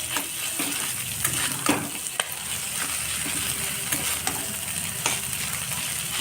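Fish pieces and onion sizzling in hot oil in a pan, with a spatula scraping and knocking against the pan at irregular moments as they are stirred.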